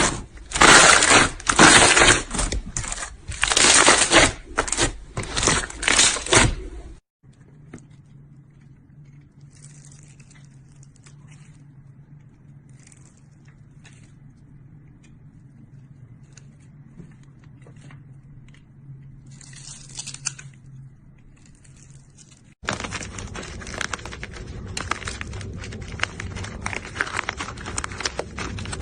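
Slime being squeezed and pressed by hand, crackling and crinkling in loud bursts. After about seven seconds it drops to a quiet stretch with a faint low hum and a few soft clicks. About three-quarters of the way through, dense steady crackling starts suddenly.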